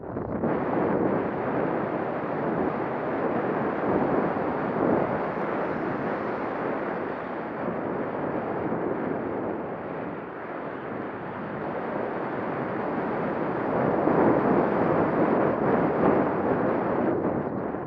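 Wind rushing over an action camera's microphone while skiing downhill, mixed with skis scraping over packed groomed snow. The rush wavers and is loudest a few seconds before the end.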